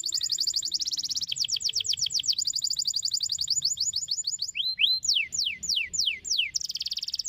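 Domestic canary singing: rapid trills of fast downward-sweeping notes, broken about halfway through by a few slower rising and falling whistles and slower down-slurs, then a fast trill again near the end.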